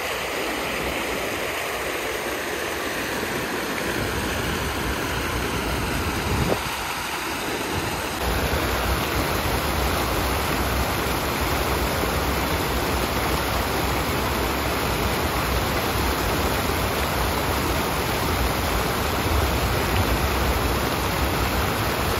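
Steady rushing of a stream and small waterfall. About eight seconds in the rush turns denser and a little louder, with more low rumble.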